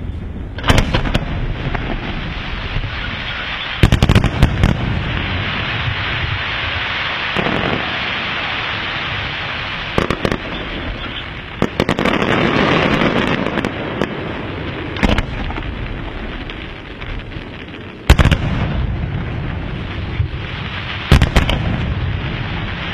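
Fireworks display: aerial shells bursting with about seven sharp bangs a few seconds apart, over continuous hissing and crackling from the burning effects.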